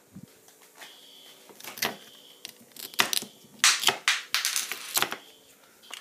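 Rustling, crackling handling noises, loudest about three to five seconds in, over a faint high-pitched smoke-alarm beep that sounds about a second and two seconds in and again at the end, with a low steady hum underneath.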